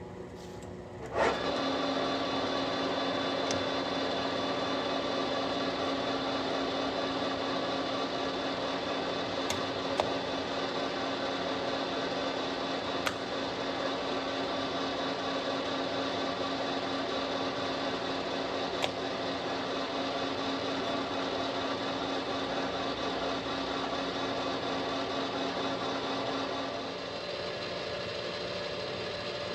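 Clausing 15-inch by 50-inch engine lathe starting up about a second in and running steadily, with a constant mechanical hum and whine and a few sharp ticks. Near the end its tone shifts to a different pitch and becomes slightly quieter.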